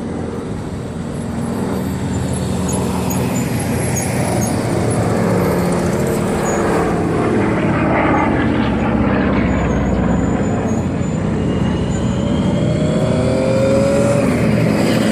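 WWII-era piston-engined aircraft flying past, a steady engine drone that slowly grows louder, with the pitch rising slightly near the end.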